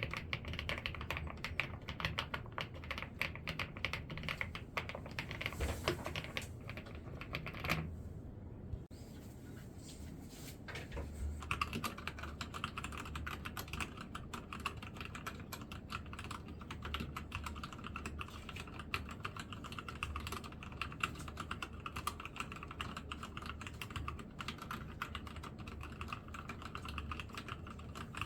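Typing on a pebble-style keyboard with round keycaps: a fast, steady run of key clicks and clacks. It eases off into a lull about 8 seconds in, then picks up again a few seconds later.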